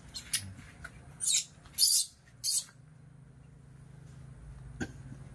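Baby macaque giving short, shrill squeaks, about four in the first three seconds, the loudest about two seconds in.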